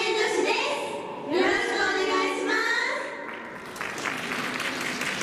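Women's voices singing or calling out for about three seconds. Audience applause then starts about three and a half seconds in and carries on.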